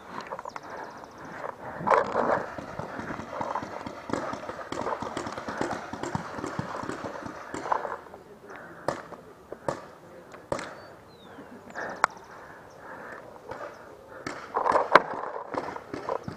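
Paintball markers firing during a game: scattered sharp pops and cracks, some single, some in quick strings, with a louder cluster near the end.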